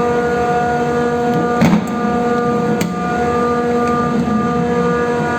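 A machine's motor running with a steady hum and whine, with a knock about a second and a half in and a sharper click near three seconds.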